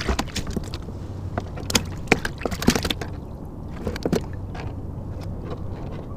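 Water sloshing and slapping against a plastic fishing kayak's hull, with many sharp knocks and clicks, most of them in the first three seconds.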